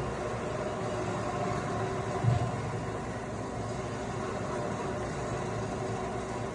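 Steady mechanical hum of a 42-inch, 100 HP impact pulveriser running, a drone of several steady tones over a rushing noise. A brief low thump about two seconds in.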